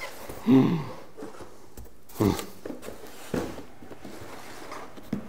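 Cardboard boxes being handled: a few short knocks and scrapes as a boxed camera is lifted out of its shipping carton and set down and turned on a wooden table. The loudest sound, about half a second in, is a short hum from the man.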